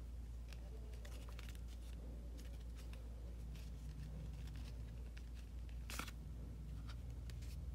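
Faint rustling and light clicks of fingers handling a leather card wallet, sliding a card in its pocket, with one sharper click about six seconds in, over a steady low hum.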